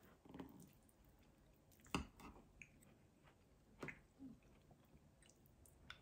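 Quiet eating sounds: a few light clicks of chopsticks against ceramic tableware, the sharpest about two seconds in, with soft chewing between.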